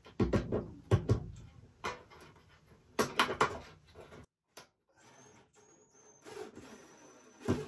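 Irregular sharp knocks and rattles of a perforated metal hanger strap and a screw against a wooden floor joist as the strap is fastened with a cordless drill-driver. The loudest knocks come in the first second and in a cluster about three seconds in.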